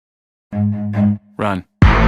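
Meme sound-effect clip: after a half-second gap, two short pitched voice-like notes and a quick note that bends in pitch, then loud music starts suddenly near the end.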